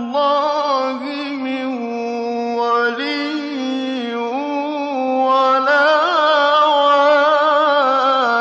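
A male reciter chanting the Quran in the mujawwad style, drawing single syllables out into long held notes with slow, wavering melodic ornaments. The voice grows louder and climbs in pitch about five seconds in.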